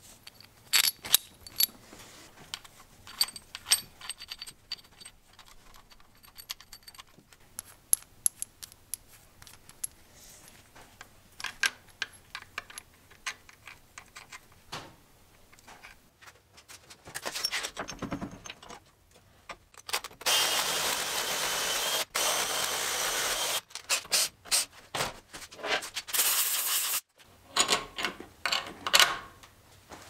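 Steel bolts and a shift-linkage lever handled and fitted by hand: scattered small metallic clicks and clinks. About two-thirds of the way through comes a steady hiss lasting a few seconds, then a shorter second one after a brief break.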